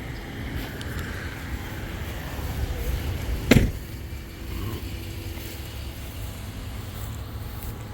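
A single shot from a .22 Brocock Atomic XR PCP air rifle, one sharp crack about three and a half seconds in, over a steady low rumble.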